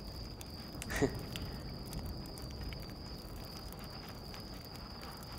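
Crickets making a steady high trill, with a brief voice sound falling in pitch about a second in.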